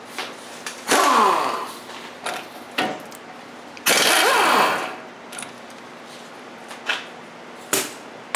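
A power tool runs in two short bursts, about one and four seconds in, its pitch falling through each burst, as it spins the castle nut off the outer tie rod end's ball stud. A few light metal clicks come between the bursts.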